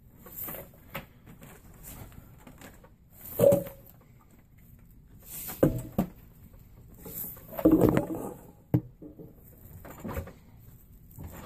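Braiding strands rustling and knocking as they are handled and crossed over at a clamp on a wooden table, in irregular short bursts with a sharp click about nine seconds in.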